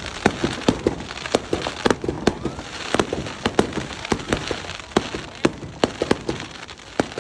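Fireworks going off in rapid succession: many sharp bangs, several a second, over a continuous noisy hiss.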